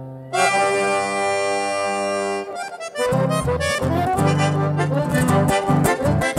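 Button accordion playing chamamé. It holds one long chord for about two seconds, fades briefly, then goes into a rhythmic, pulsing passage of chords.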